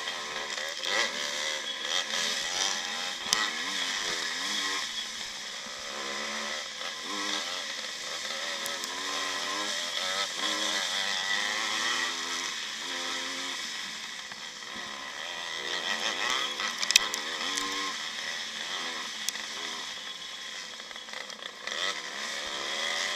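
Onboard sound of a 1955 Maico vintage motocross bike's two-stroke single-cylinder engine under race load, its revs rising and falling over and over as it is ridden over the dirt track. A few sharp knocks cut through, the loudest about 17 seconds in.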